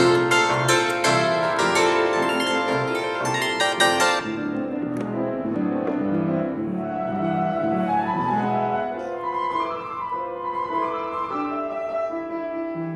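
Bandura and piano playing a classical concerto together: a dense, bright run of plucked and struck chords for about four seconds, then a softer stretch of longer-held notes.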